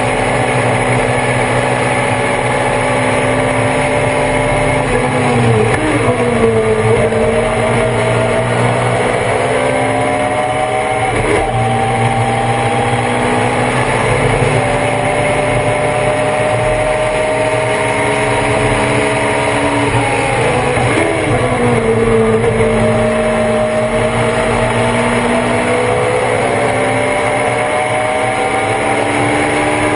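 Thunder Roadster race car engine at speed, heard on board. Its pitch climbs slowly under power, with a brief break about eleven seconds in. It drops sharply twice, about five and twenty seconds in, as the car slows and downshifts, then climbs again.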